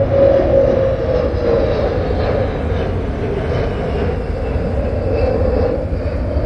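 Sukhoi Su-30MKI twin-engine fighter jet flying low overhead on approach with its landing gear down. The engines make a loud, steady rumble, with a whining tone that slowly falls in pitch as the jet passes.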